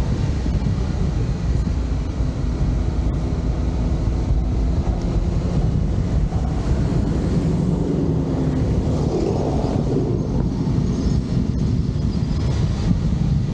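Wind buffeting the microphone of a moving vehicle, a steady low rumble of wind and road noise, with a faint engine hum that rises and falls about halfway through.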